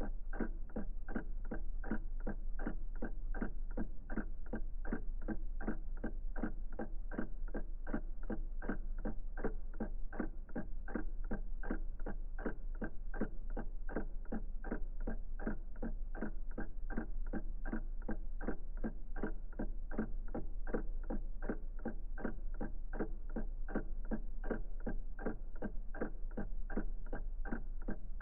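Old clock ticking steadily, about four even ticks a second, over a low steady hum.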